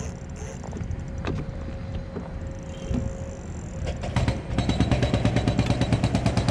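Spinning reel working against a hooked black drum, with a rapid, even clicking that sets in about four seconds in over a steady low rumble.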